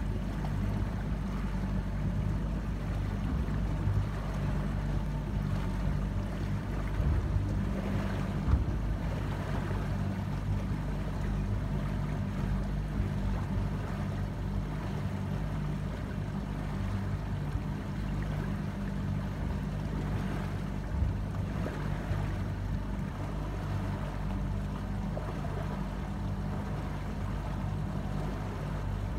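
Motorboat engine running steadily with a low hum, over the wash of water along the hull.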